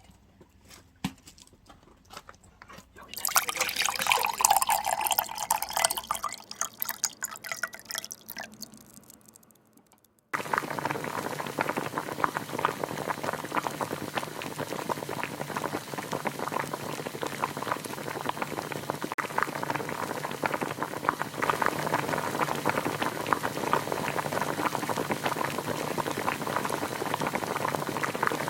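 Water poured into a pot for a few seconds, fading out; then, after an abrupt cut, water in a pot bubbling steadily at a boil, a dense patter of tiny pops, for cooking ramen over a wood fire.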